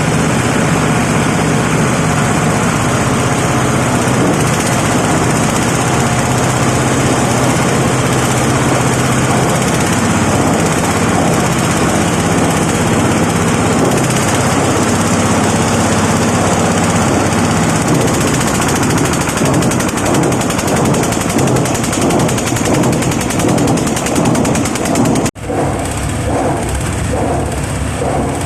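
Oil palm empty fruit bunch crusher running, loud and continuous: a steady engine hum under a dense, rapid rattling clatter. Near the end the sound cuts out for an instant and resumes with a slightly different texture.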